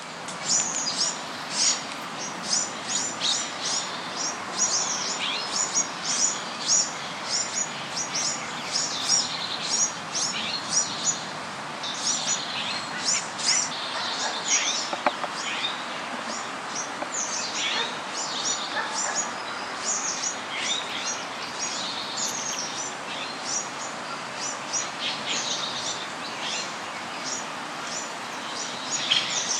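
Many small birds chirping continuously, with rapid, overlapping high-pitched chirps and tweets over a steady background hiss.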